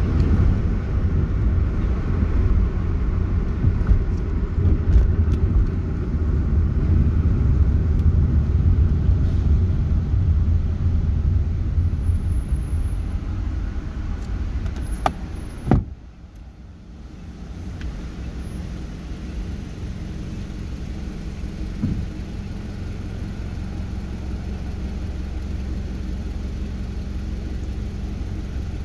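Inside a car's cabin: low rumble of engine and road noise while driving, then a sharp click about halfway through and a quieter, steady hum as the car sits stopped at an intersection.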